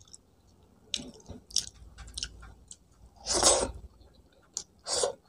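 A person chewing a mouthful of rice and meat close to the microphone: soft wet chewing and small mouth clicks, with a louder rush of air about three and a half seconds in and another near the end.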